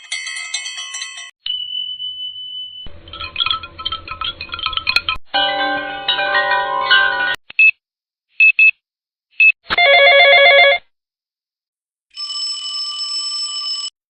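A string of short electronic ringtone-like tones and chimes spliced together, each starting and stopping abruptly with dead silence between them: a rapid tone pattern, then a single held high beep for about a second and a half, then busier tone clusters, a few quick blips, and a buzzy held tone near the end.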